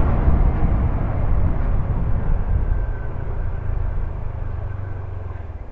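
Engine hum and road noise of a moving vehicle, steady and low, getting gradually quieter toward the end.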